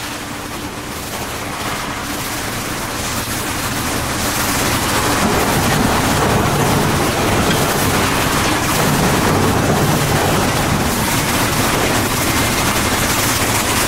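Heavy machinery running steadily with a dense, rapid rattling clatter, echoing in a large workshop hall and growing louder over the first few seconds.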